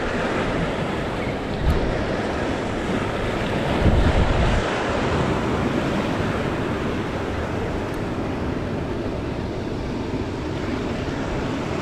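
Sea surf breaking and washing over shore rocks, with wind buffeting the microphone in heavier low gusts about two and four seconds in.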